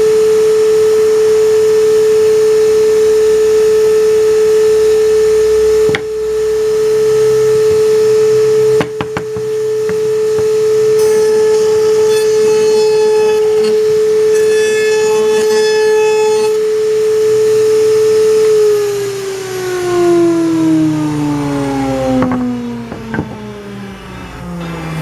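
An electric power tool's motor running at a steady high hum, then switched off about three-quarters of the way through and spinning down, its pitch falling steadily.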